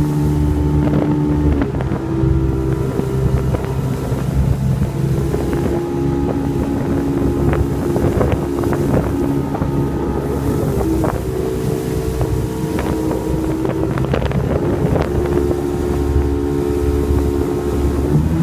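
Motorboat engine running under way, its speed stepping up and down a few times, with wind buffeting the microphone and scattered short knocks.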